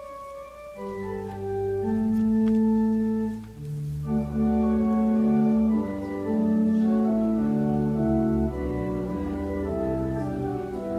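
Church organ playing slow, sustained chords, coming in about a second in and moving to a new chord every second or two.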